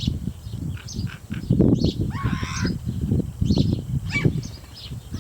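Wild birds calling: many short high calls overlapping, with a longer harsh squawk about two seconds in, over an irregular low rumble.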